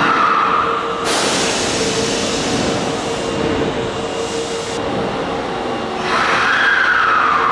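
Subway train at the station platform: a whine near the start, a sharp hiss from about one second in lasting nearly four seconds, then, near the end, a second whine sliding down in pitch.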